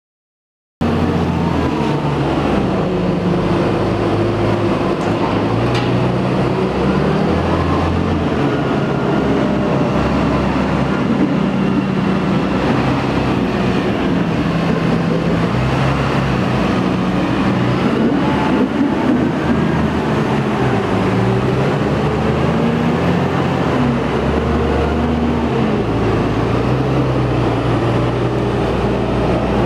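Valtra T214 tractor's six-cylinder diesel engine working under load on a silage clamp, its revs rising and falling as it drives up and down the heap. The sound cuts in suddenly about a second in.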